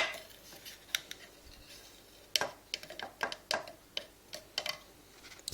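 A measuring spoon clicking and tapping against a container as ground coffee is scooped into a filter. There is a sharp click at the start, another about a second in, then a run of irregular light taps and scrapes.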